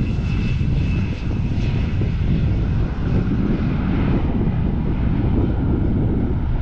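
Jet engine noise from a KLM Embraer E190's twin turbofans as the airliner rolls out along the runway after landing: a steady low rumble, with a high whine that fades over the first two seconds.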